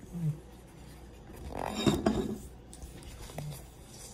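Handling noise of a phone or camera being picked up and moved: rubbing and knocking, with a short clattering burst about two seconds in.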